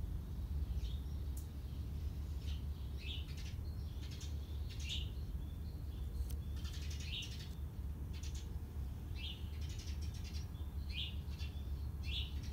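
Small birds chirping outdoors: short high calls, one roughly every second, over a steady low rumble.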